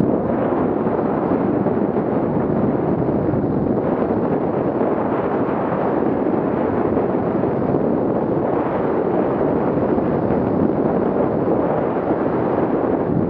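Heavy wind buffeting a helmet-mounted camera's microphone as a skier runs straight down the slope at high speed, a steady, loud rumble.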